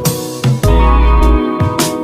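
Background music with a beat: sharp percussion hits, sustained guitar-like tones and a deep bass note about half a second in.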